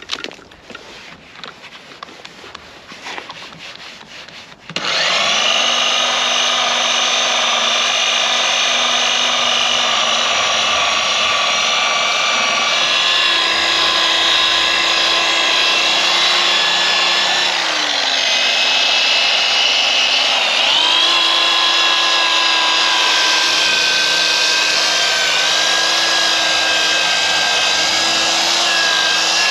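Electric polishing machine (buffer) switched on about five seconds in and running steadily as it polishes scratches out of a car bumper's paint, its whine dipping in pitch briefly twice. Before it starts, a few light handling clicks.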